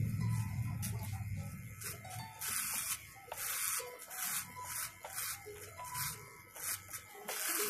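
Electric hair clippers cutting hair at the nape over a comb: a low motor buzz fades in the first second or two, then comes a series of short, crisp rasping strokes as the blades cut through the hair.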